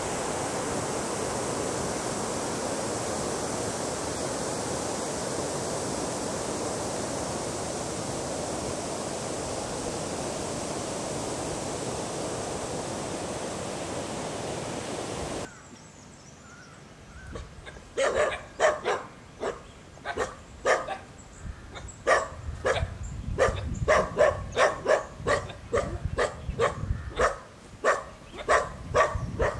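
Steady rushing of water from a river check dam, which cuts off suddenly about halfway through. A few seconds later a dog starts barking repeatedly, about one or two barks a second, to the end.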